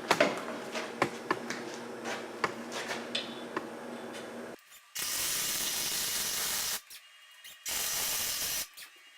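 Flux-core wire-feed welder arc crackling in two short bursts, the first about two seconds long starting about halfway in, the second about a second long near the end, each starting and stopping abruptly. The arc stops and starts because of wire feed issues. Before the welding, a series of clicks and knocks.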